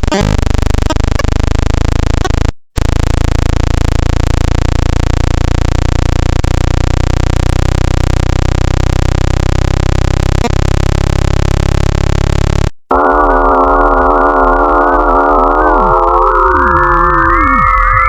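Spacecraft data turned into sound, a synthetic 'space sound': a dense, steady electronic drone of many stacked tones. It breaks off briefly twice, and the second time, near two-thirds of the way through, it switches to wavering, gliding whistle-like tones that climb in pitch near the end.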